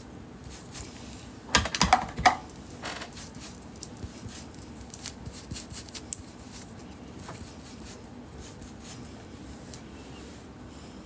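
Scattered light clicks and taps, with a short cluster of louder clacks about one and a half to two and a half seconds in, like small hard objects being handled.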